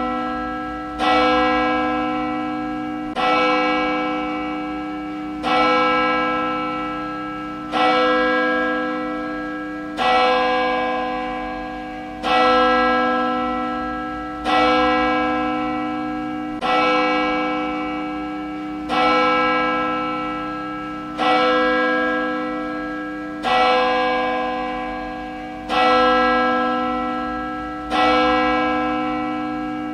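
A single church bell tolling at a steady pace, one strike about every two seconds. Each strike rings on with the same rich stack of tones and fades before the next.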